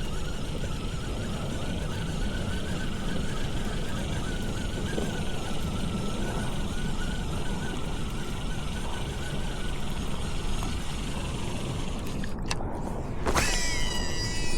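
Steady wind rumble on the microphone, with a sharp click followed by a ringing tone near the end.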